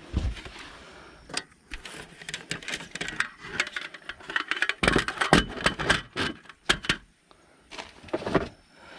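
Slatted table-top panels clicking and rattling against each other and against a plastic storage box lid as they are handled and set in place, in several bursts of quick knocks with short pauses between.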